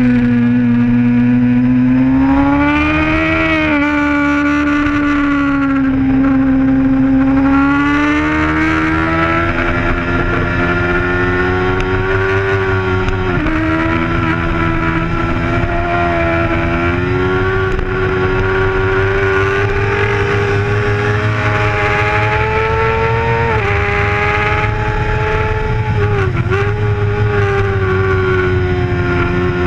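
Racing sport bike's engine at high revs, heard from on board the bike: a loud, steady engine note that rises and falls with the throttle, with brief sharp dips about halfway through and twice near the end.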